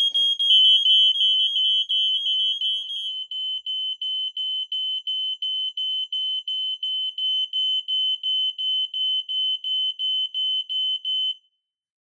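Ei Electronics smoke alarms on Ei168RC RadioLink bases sounding on test. At first two high-pitched alarm sounders are heard together, one steady and one beeping rapidly, as the linked alarm joins the one under test. The steady one stops about three seconds in, and the rapid beeping, about three to four beeps a second, goes on until it cuts off near the end.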